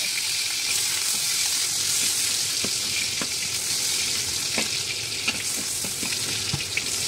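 Chopped garlic sizzling in hot oil in a wok, stirred with a spatula, with a few light taps of the spatula against the pan.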